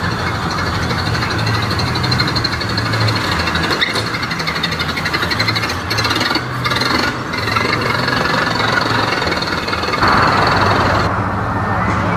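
A car engine running at idle, its exhaust pulsing rapidly and unevenly; the sound grows fuller about ten seconds in.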